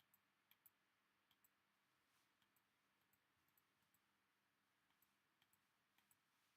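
Near silence: a faint hiss with many faint, irregularly spaced clicks.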